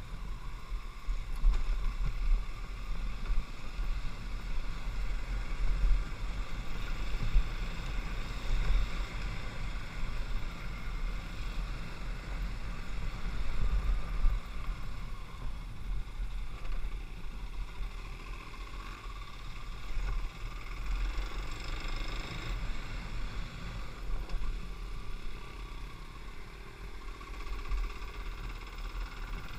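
Kawasaki KLX 250 trail bike's single-cylinder four-stroke engine running while riding a dirt track, its loudness rising and falling, with a strong uneven low rumble of wind on the microphone.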